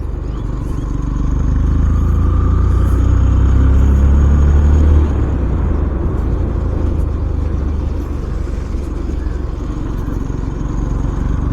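Yamaha FZS-V4's single-cylinder engine running while riding, pulling harder and growing louder for the first few seconds, then dropping suddenly about five seconds in as the throttle eases and settling to a steadier, quieter run.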